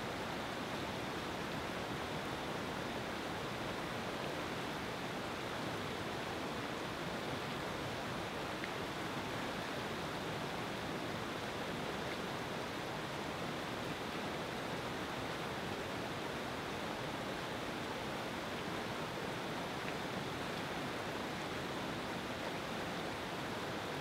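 River rapids: fast whitewater rushing and churning over rocks in a steady, unbroken roar.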